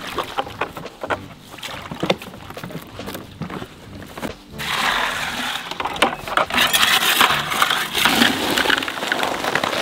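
Water splashing and sloshing in a plastic bucket as it is dipped and carried. About halfway in, a louder, denser rough swishing starts as wet concrete is mixed by hand in the bucket.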